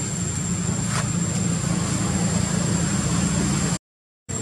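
Steady low mechanical hum with a thin, high steady whine above it. It cuts out completely for about half a second near the end.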